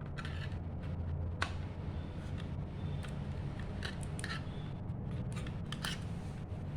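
Light, irregular clicks and scrapes as a 2.5-inch SATA SSD is handled and fitted into the drive bay of an open laptop, over a steady low hum.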